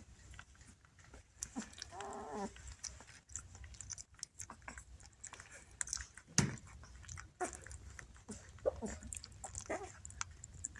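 Bernese Mountain Dog chewing and mouthing, with irregular small clicks and smacking noises and a brief pitched dog vocalization about two seconds in.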